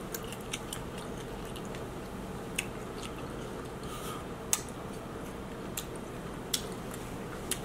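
Close-up eating sounds of king crab and seafood boil: wet chewing and squishing, with scattered sharp clicks every second or so, over a steady background hum.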